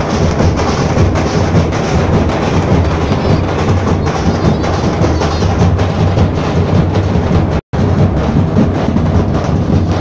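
Dhol-tasha drumming: large dhol barrel drums and tasha snare drums beating a loud, fast, dense rhythm. The sound cuts out for a split second near the three-quarter mark.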